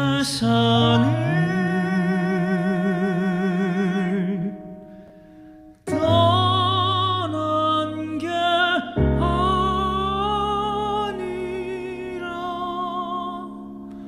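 Three male pop-opera crossover singers singing a slow song together in harmony, holding long notes with wide vibrato. The singing drops away briefly around five seconds in, then the voices come back in together.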